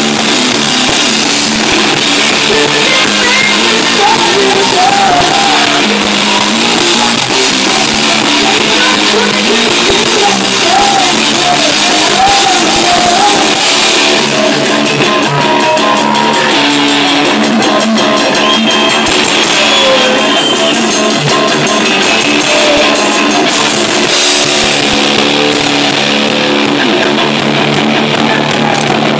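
Live rock band playing loud: electric guitar, drum kit and a sung vocal line. About halfway through, the drummer's cymbals come in fast and steady on top.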